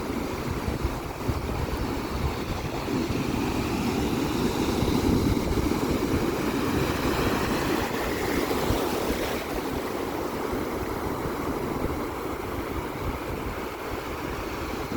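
Sea waves breaking and washing ashore, a continuous rushing surf that swells louder around the middle and eases off toward the end.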